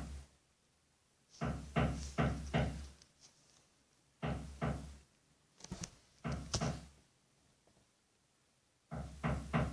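Renovation hammering from the neighbours, heard through the wall: heavy knocks in quick groups of three or four blows, repeated four times with short pauses between.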